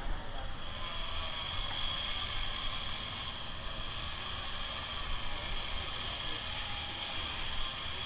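Angle grinder with an abrasive cutting disc grinding into metal: a steady high-pitched grinding whine. The whine strengthens about a second in, then holds.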